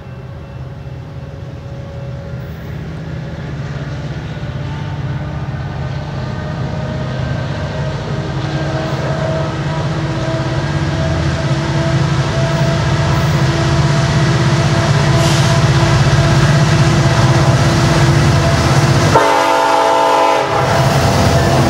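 Freight train led by BNSF diesel locomotives approaching and coming up close: a low engine drone that grows steadily louder. From about halfway through, the locomotive horn sounds in long held notes as the train nears.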